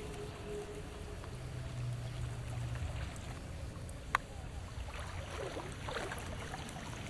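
Seashore ambience: water lapping against rocks under a steady low rumble, with a low hum for about a second and a half near the start and one sharp click about four seconds in.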